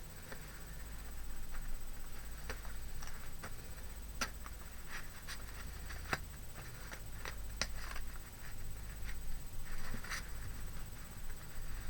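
Sheets of craft paper being handled and leafed through: scattered rustles and light taps and clicks.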